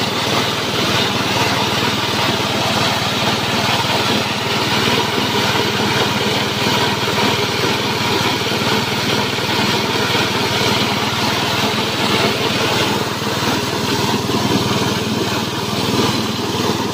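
Small single-cylinder petrol engine running steadily at speed, belt-driving a JG 125 multifunction chopper-grinder as it grinds feed, a continuous loud engine and machine noise.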